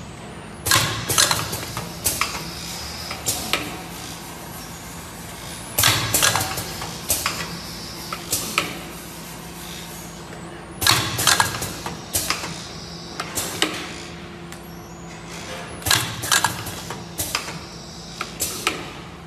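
Cup foil-sealing machine running, with a steady hum under it. Every five seconds or so it gives a cluster of sharp clicks and clacks as it goes through a cycle.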